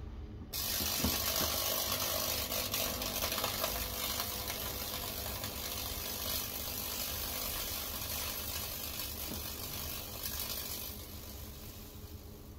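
High-voltage fractal-burning probes arcing across wet cedar, a loud crackling electrical buzz over a steady hum as the current burns a Lichtenberg figure into the wood. It switches on suddenly about half a second in and eases off near the end.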